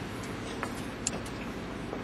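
Steady background noise of a factory hall, with a couple of light clicks about half a second and a second in.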